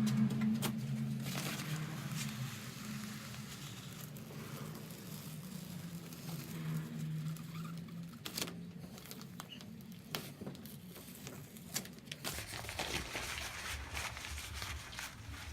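Paper transfer backing being slowly peeled off a wet-applied vinyl decal, crinkling and tearing softly with scattered small crackles.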